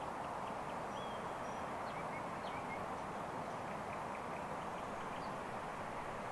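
Faint, scattered songbird chirps and a few short whistled notes over a steady background hiss.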